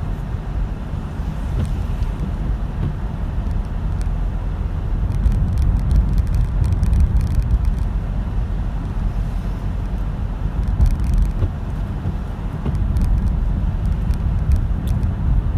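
Steady low road and engine rumble of a car being driven, heard from inside the cabin, with faint scattered ticks.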